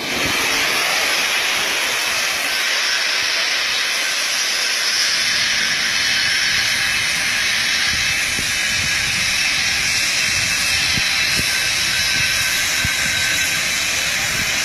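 Steady, loud rushing hiss of grain pouring out of a collapsed steel grain bin, with a few faint low thuds underneath.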